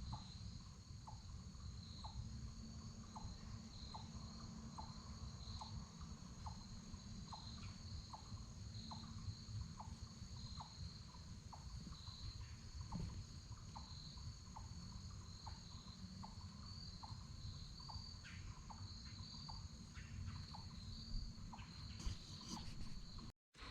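Faint chirping of crickets, a steady high trill pulsing about twice a second, over a low background rumble.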